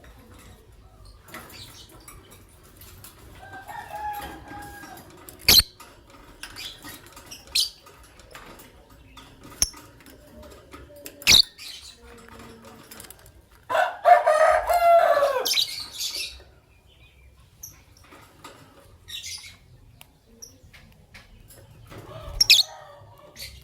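Lovebirds, a green masked lovebird and an albino lovebird, giving scattered short chirps, with one loud harsh chattering call of about two seconds a little past the middle. Three sharp knocks stand out, a few seconds apart.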